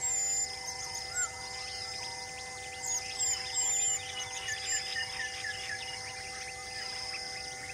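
Forest ambience: birds chirping and whistling over a steady, pulsing high insect call, with a quick run of chirps around the middle.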